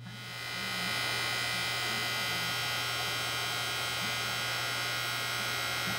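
Electric heat gun switched on, its motor and fan spinning up over about a second and then running with a steady hum. It is heating a solder-seal heat-shrink connector over a twisted wire splice to melt the solder.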